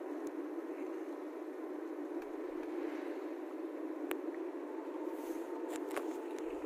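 Steady road and engine noise inside a moving car's cabin, with a few faint clicks.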